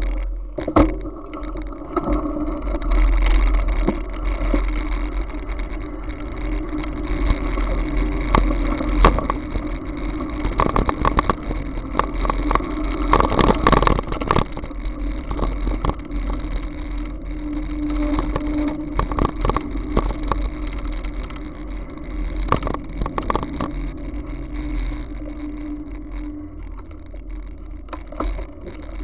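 Riding noise picked up by a bicycle-mounted action camera: wind buffeting the microphone as a low rumble, with frequent clicks and rattles from rolling over a rough gravel road, busiest about halfway through.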